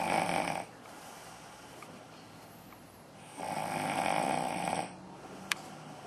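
Snoring, slow and regular: one snore fades out about half a second in, another runs from about three and a half to five seconds in, with quieter breathing between. A single sharp click comes shortly after the second snore.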